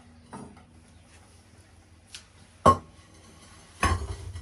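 Fired ceramics knocking against each other and the kiln shelf inside an electric kiln: a few light clicks, then a single sharp clink about two-thirds of the way in, and a duller knock with a low thump near the end.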